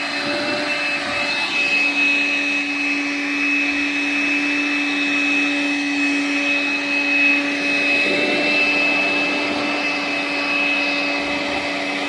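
Makita cordless handheld vacuum cleaner running steadily with its nozzle drawing on a cat's long fur: a steady motor whine over rushing air, the tone shifting slightly about two seconds in.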